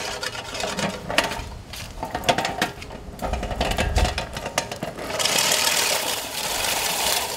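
Helix manual push reel mower being pushed: its spinning reel and wheels give a fast run of clicks across the brick pavers, and about five seconds in, as it reaches the lawn, the sound turns to a dense, steady hissing whir of the reel blades cutting grass.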